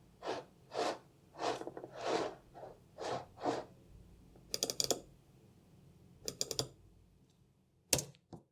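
Apple Magic Mouse slid back and forth across a desk in about eight quick swishing strokes. Then it is clicked in two quick runs of sharp clicks, with a single click near the end.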